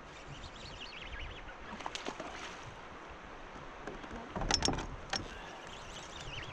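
Fishing reel whirring as line is wound in and pulled off against the drag by a hooked fish. A short cluster of sharp clicks comes about four and a half seconds in.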